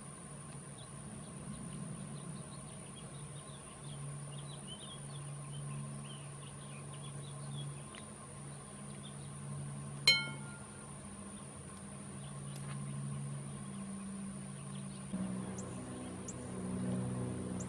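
Quiet garden ambience: faint bird chirps over a low steady hum that swells near the end, broken once about ten seconds in by a sharp clink of small glass tiles being handled.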